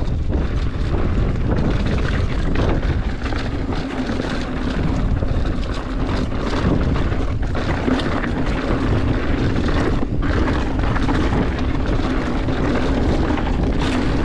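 Wind rushing over the camera microphone of a mountain bike rider on the move, with tyres rolling over rock and scattered knocks and rattles from the bike on rough ground.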